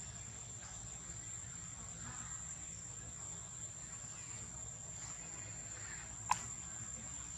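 Insects droning steadily in one high, unbroken tone. A single sharp click comes about six seconds in.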